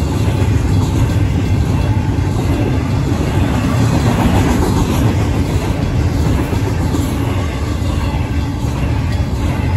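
Double-stack intermodal freight train's container well cars rolling past at a grade crossing: a steady low rumble of wheels on the rails, with the crossing's signal bells ringing beneath it.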